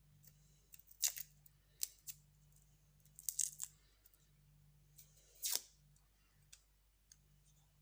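The papery skin being peeled off a garlic clove: a few short, faint crackles and tearing sounds.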